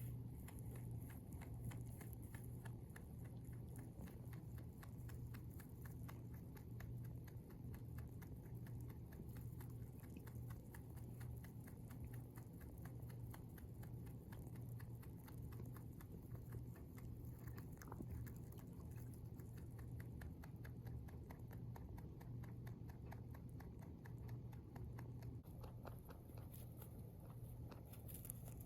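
A rabbit chewing hay: a long run of rapid, even crunching bites, heard faintly over a steady low hum.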